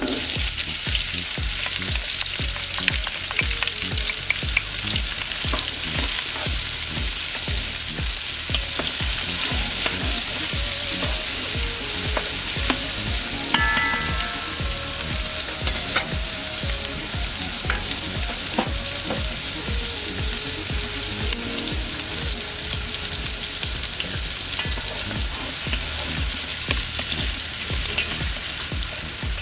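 Diced onion, red pepper and carrot sizzling steadily in hot vegetable oil in a large aluminium pot, tipped in at the start and stirred with a wooden spoon.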